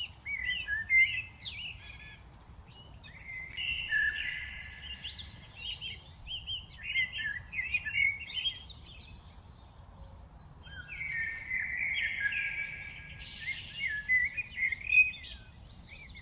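A mixed flock of songbirds chirping and whistling, many short calls overlapping, over a low steady rumble.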